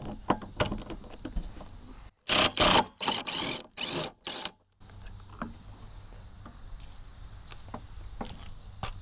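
Cordless drill with a 22 mm socket running in a few short, loud bursts about two to four and a half seconds in, working the nuts that hold a Jeep's spare tire to its tailgate carrier. Scattered clicks of tool handling come before and after, over a steady high insect buzz.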